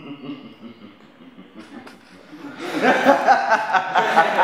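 Human laughter: quiet at first, then loud, rhythmic chuckling about three seconds in.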